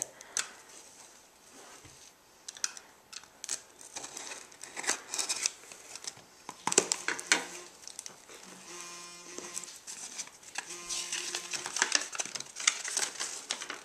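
A reptile shipping box being opened by hand: irregular crinkling, rustling and tearing of packing material and tape, with a couple of short squeaky rasps partway through.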